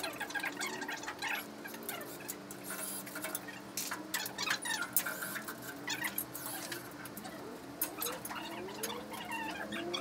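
Metal clinks and rattles as steel wire ball-return rails and frame parts are handled, over a humming tone that glides up and down in pitch, rising near the end.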